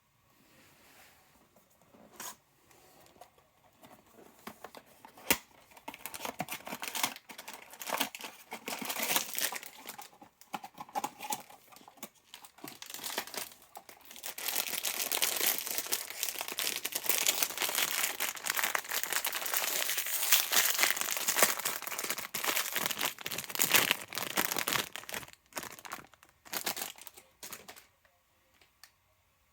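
Crinkly packaging being handled and torn open: scattered rustles and clicks at first, then about ten seconds of dense, continuous crinkling and tearing midway, tapering to a few last rustles near the end.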